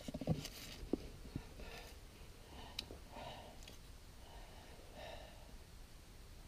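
A man breathing heavily, a string of audible breaths about a second apart, with a few sharp knocks in the first second and a half as he kneels onto stone.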